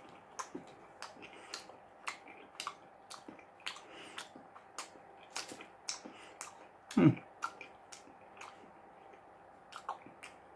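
A person chewing a mouthful of Subway sub sandwich up close: wet mouth clicks and smacks, two or three a second, with one louder short low mouth sound about seven seconds in.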